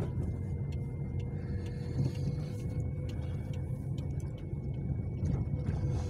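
Car running along a road, heard from inside the cabin: a steady low engine and tyre rumble with a faint constant whine. A few light ticks come through on top.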